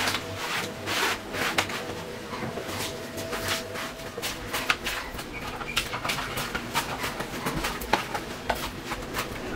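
Hand cleaning of a kitchen countertop: a brush or cloth rubbing and scraping over the surface in short irregular strokes, with small knocks, as dry dust and debris are swept up.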